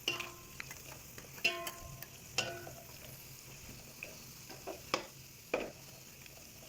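Utensil stirring and scraping in a kawali (wok) as fried glutinous rice is tossed in melted sugar and oil, with a low sizzle underneath. About five scattered scrapes and knocks against the pan, some ringing briefly.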